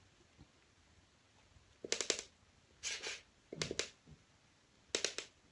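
Kittens at play on a hardwood floor: after a quiet start, several short bursts of rapid clicking and rattling.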